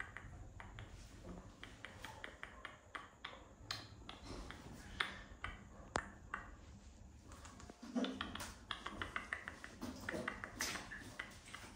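Scattered light taps and clicks from a wet baby monkey's hands and feet on a tiled wall and the rim of a plastic basin, with a few sharper knocks as it shifts its grip and jumps about.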